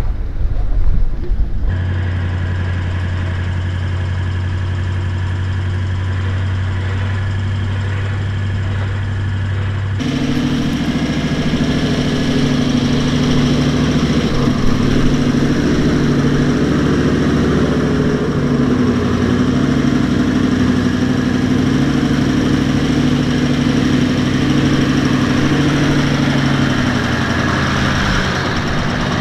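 Toyota LandCruiser 76's V8 turbo-diesel engine running steadily under load while driving a 4WD track. About ten seconds in, the engine note changes to a louder, slightly higher steady drone.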